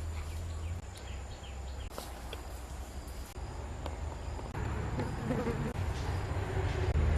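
An insect buzzing, growing louder over the last few seconds, over a low rumble and a few faint clicks.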